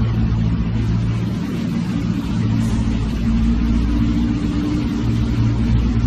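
A car engine running steadily, its pitch dipping slightly for a moment before settling back.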